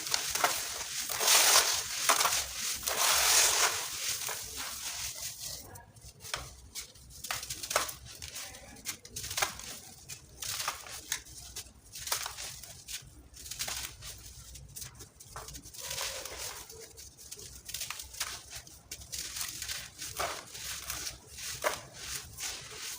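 Dry sand-cement chunks being crushed and crumbled: dense grainy crunching for the first few seconds, then scattered sharp cracks and short crumbles.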